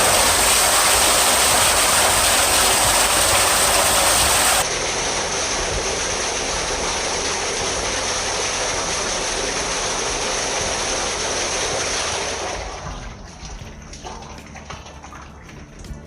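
Water gushing into a roof water tank, a loud steady rush that drops in level abruptly about four and a half seconds in and dies away about twelve seconds in.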